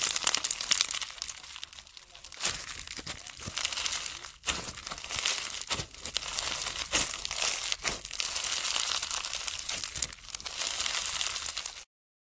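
Crunchy bead-filled slime squeezed and pulled apart by fingers, a dense run of crackling and popping with a few short pauses, cutting off suddenly near the end.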